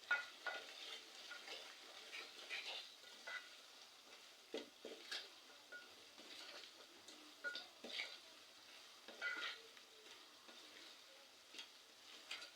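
A spoon stirring vegetables frying in a cooking pot: irregular soft scrapes and clicks against the pot over a faint sizzle.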